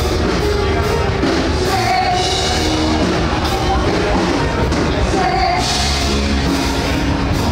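Rock music with a singing voice, loud and steady, with long held sung notes.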